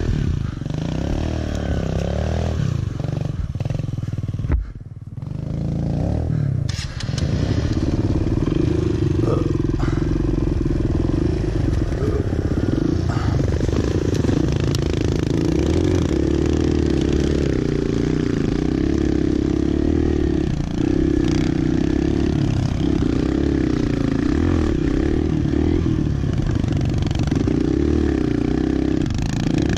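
Small Kawasaki dirt bike engines running at a steady part throttle, with small rises and falls in revs. The sound briefly drops about five seconds in.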